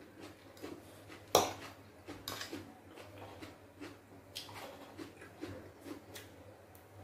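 Metal fork clinking and scraping on a ceramic plate while spaghetti is twirled and lifted, with one sharp clink about a second and a half in, amid soft mouth sounds of chewing.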